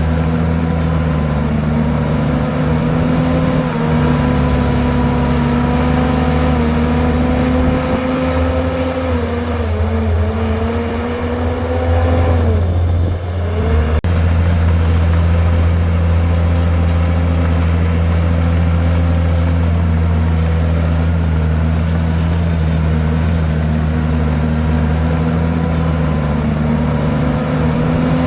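Komatsu bulldozer's diesel engine running steadily while it pushes rock and soil. Its pitch sags in the middle, drops about twelve seconds in, then picks back up and holds steady.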